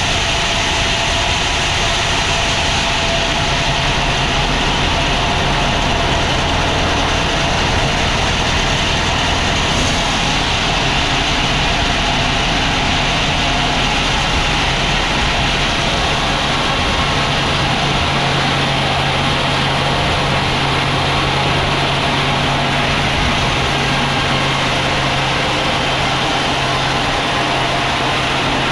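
Sawmill machinery running steadily: a low motor hum under a constant high sawing noise. The low hum changes pitch a little past the halfway point.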